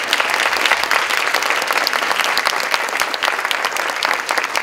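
Audience applauding: many people clapping together in a steady wash of claps.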